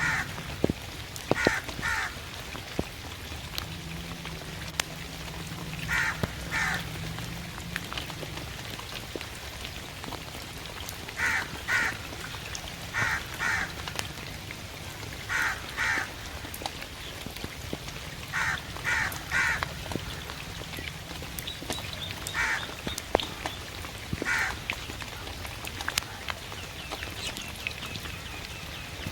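A raven calling in the rain: short caws, mostly in pairs or threes, every few seconds, over a steady hiss of rain with sharp drip ticks. The calls stop a few seconds before the end, leaving only the rain.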